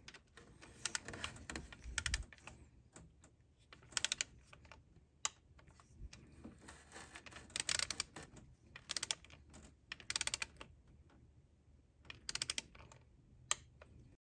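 A torque wrench's ratchet clicking in repeated short, rapid bursts, with quiet gaps between them, as the thermostat housing bolts are tightened to 96 inch-pounds one after another.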